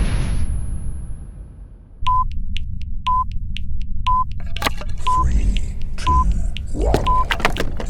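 Countdown-timer sound effect: an explosion's rumble dies away, then a short electronic beep sounds once a second, six beeps in all, over a low rumble. A few sharp clicks and a rising whoosh come in the last second or two, leading into the next explosion.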